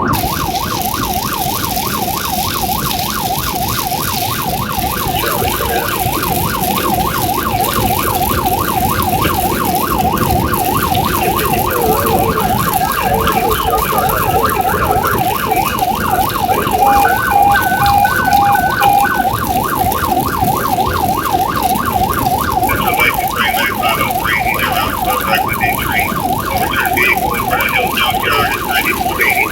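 Emergency vehicle siren on a fast yelp, sweeping up and down about three to four times a second without a break, over road and engine rumble. About two-thirds of the way through, a few short steady tones cut in, and near the end a second, higher warbling tone joins.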